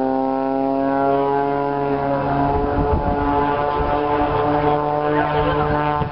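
Propeller aircraft flying past: a steady droning tone with many overtones that slowly falls in pitch as it goes by.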